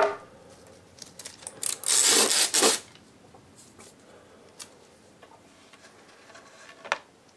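Handling noises from paddles and tape on a carpeted floor: a sharp knock at the start, a rough scraping rustle lasting about a second around two seconds in, faint scattered ticks, and another short knock near the end as the wooden paddle is lifted.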